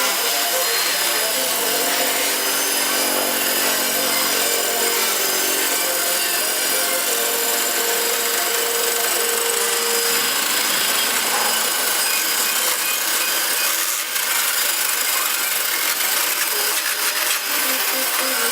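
Centerless grinder running, its grinding wheel working a long round bar: a loud, steady hiss of grinding with a few faint steady tones under it.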